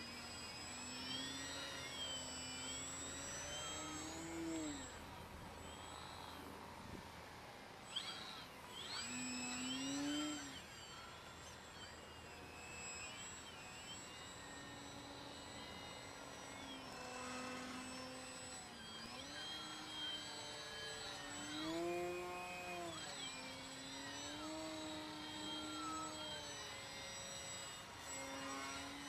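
Electric motor and propeller of a Carbon-Z Yak 54 3X RC aerobatic plane in flight, a whining drone whose pitch rises, falls and levels off again and again as the throttle changes.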